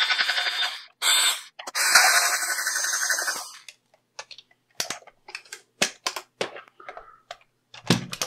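A small 3.6 V cordless electric screwdriver whirs in three bursts, the last about two seconds long, as it backs out the screws by the transmitter's handle. After that come scattered light clicks and taps of the hard plastic radio case and tools being handled.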